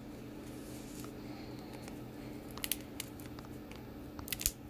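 Knife blade cutting and scraping along the clear plastic seal of a CD package, with a few sharp plastic ticks about two and a half seconds in and again near the end, over a low steady hum.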